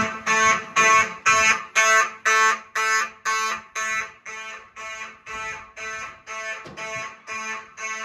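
Building fire alarm in full alarm, sounding in march-time code: about two pulses a second, each pulse a harsh tone. It grows fainter about halfway through. The pulsed coding was set so the alarm carries through walls and over ambient noise better than a steady tone.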